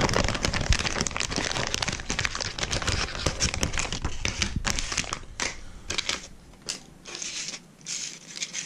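Plastic packaging of Storm 360GT Searchbait soft-plastic swimbait bodies being handled and opened by hand. The plastic rustles densely for about five seconds, then in sparser, separate short rustles.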